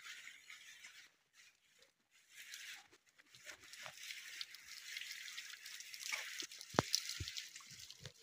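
Two dull knocks of green bamboo poles being handled, close together about seven seconds in, with faint clicks and a steady high hiss underneath.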